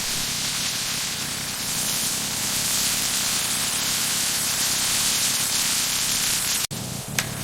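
Steady hissing noise over a low, even hum. It drops out abruptly for an instant near the end, and a single sharp click follows.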